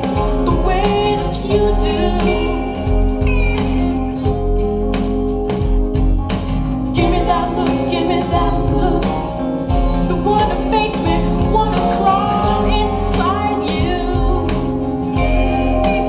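Rock song with a steady drum beat and singing, played back through Klipsch RP-600M bookshelf speakers.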